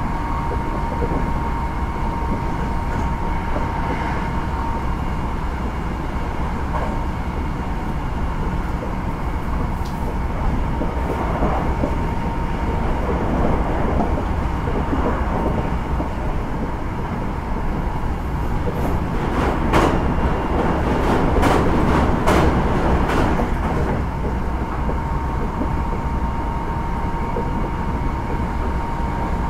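Hankyu 9000 series electric train (Toshiba IGBT VVVF inverter) running at speed between stations, heard from inside the car: a steady rumble with a constant high whine. About twenty seconds in, a quick run of sharp clacks comes from the wheels passing over rail joints.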